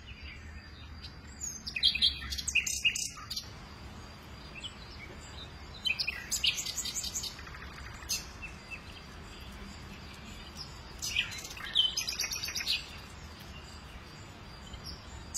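Wild birds singing: three bouts of quick, high chirps a few seconds apart, over faint outdoor background noise.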